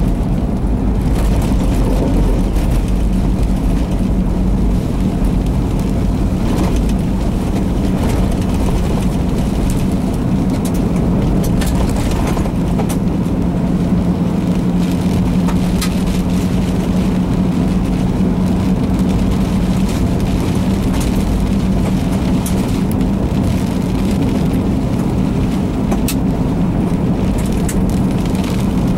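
Steady engine and road drone inside a moving vehicle driving through a severe thunderstorm, with heavy low wind rumble and scattered sharp ticks of rain and debris striking the car.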